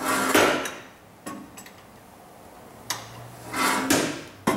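MEP-004A military diesel generator engine being turned over slowly by hand with a breaker bar on the crankshaft pulley. There are two broad rushes about three and a half seconds apart, with light clicks between them and a sharp knock near the end. The engine turns freely with compression and is not hydrolocked.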